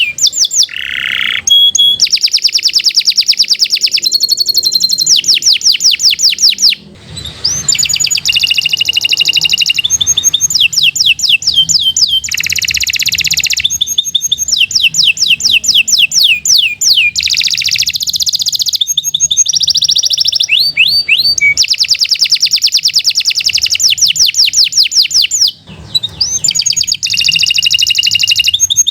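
Domestic canary singing a long, continuous song of fast trills and rapidly repeated notes, with two short breaks, about seven seconds in and near twenty-five seconds in.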